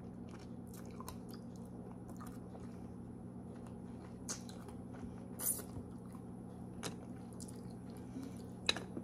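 A person quietly chewing and biting food, with a few short wet mouth clicks here and there, the sharpest about halfway and near the end. A steady low hum runs underneath.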